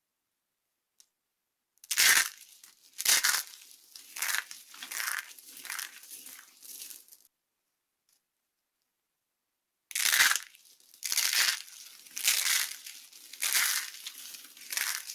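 Dry soap being crushed by hand, crunching and crumbling in short bursts about once a second. There are two runs of crunches, with a silent gap of a few seconds at the start and in the middle.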